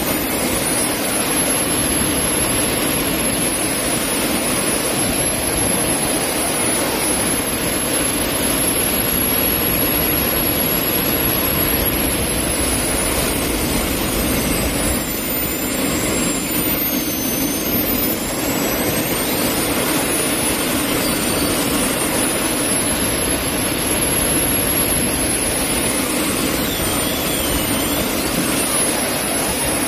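Three small jet engines on a go-kart running hard: a loud, steady rush with several high turbine whines gliding up and down as the throttle changes.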